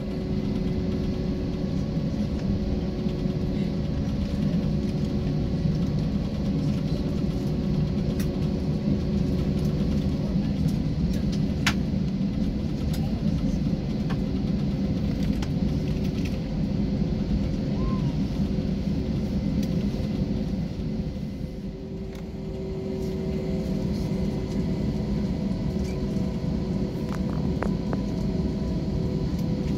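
Airbus A321's IAE V2500 jet engines at taxi power heard from inside the cabin: a steady rumble with a few held tones. It eases briefly about two-thirds of the way through, then picks back up.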